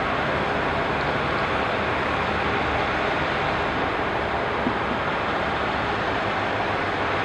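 Diesel railcar pulling out of the station: a steady rumble and rushing noise at an even level.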